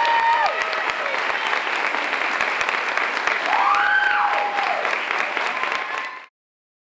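Audience applauding, with a few long cheering calls over the clapping; the sound cuts off suddenly near the end.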